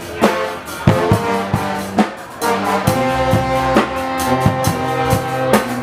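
Guggenmusik band playing: trombones and trumpets sound chords over bass drum and snare strokes. The brass holds longer chords from about halfway through.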